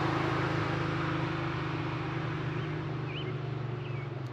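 Porsche 911's air-cooled flat-six engine fading as the car drives away down the road, a steady low drone growing gradually quieter.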